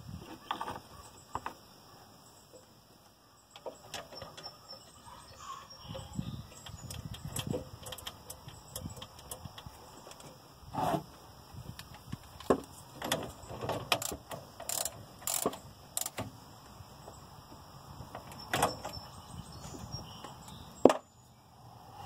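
Irregular clicks, clunks and short scrapes of hand tools and metal parts being handled. One sharp knock just before the end is the loudest.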